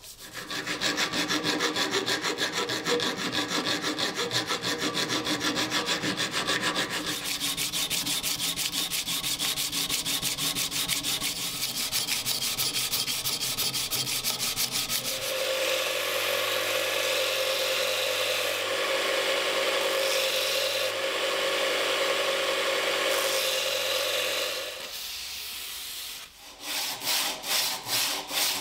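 Sandpaper rubbed back and forth by hand on a steel knife blade, a rasping scrape of quick repeated strokes. Through the middle it turns steadier over a faint low hum, and near the end it slows to about three strokes a second.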